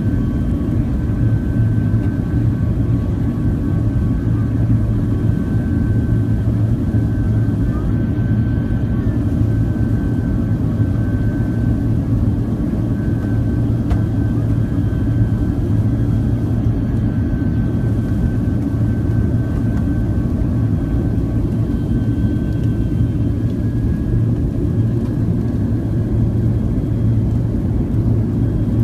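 Airliner cabin noise from the engines and airflow: a steady low rumble with a faint constant whine above it.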